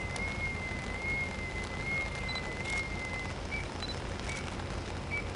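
A boatswain's call (bosun's pipe) sounding one high, gently wavering note that breaks off about three seconds in, followed by a few short high peeps, over a steady low hum.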